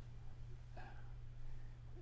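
Quiet room tone in a pause between spoken sentences: a steady low hum, with a faint, brief murmur about a second in.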